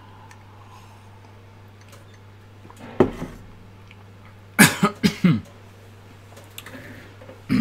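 A man coughing: one cough about three seconds in, then a quick run of three or four coughs about a second and a half later, over a low steady hum.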